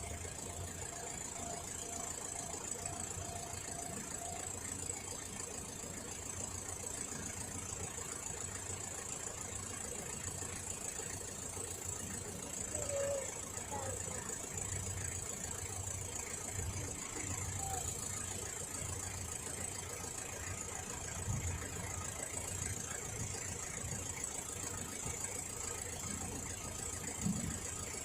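Motor vehicle engine idling with a steady low rumble, under a constant high-pitched hiss.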